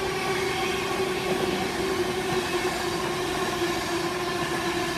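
An electric InterCity 225 express of Mark 4 coaches, hauled by a Class 91 locomotive, running through a station at speed without stopping: a steady rushing rumble of the coaches going by, with a steady hum underneath.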